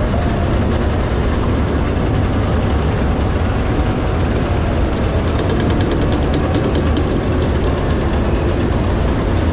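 KAAV amphibious assault vehicles driving past in a column: a steady, loud, heavy rumble of their diesel engines and tracks, with a short run of quick ticking about five seconds in.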